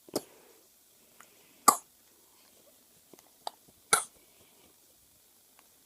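Baby with a bad cold giving about four short, sharp coughs over four seconds, the loudest about two seconds in and again about four seconds in.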